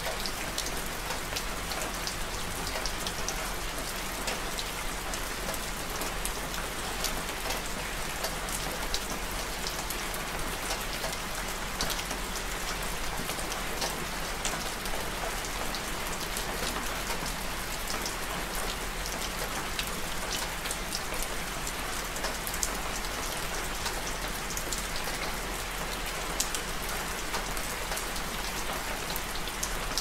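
Steady rain falling: an even hiss with many scattered, sharp drop ticks.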